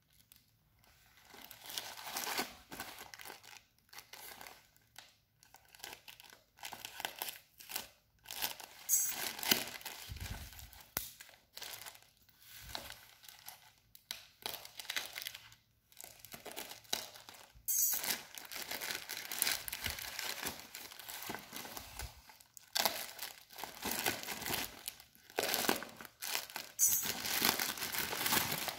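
Plastic courier mailer bag crinkling and tearing as hands slit it open with a razor blade and pull at it, in irregular stop-start rustles; near the end the bubble-wrap pouch inside crinkles as it is handled.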